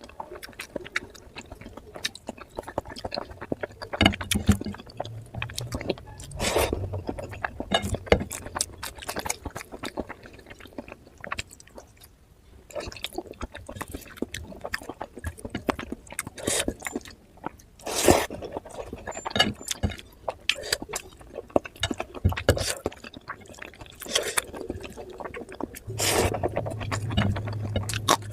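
A person eating oily mutton curry close to the microphone: irregular wet chewing, lip smacks and mouth clicks.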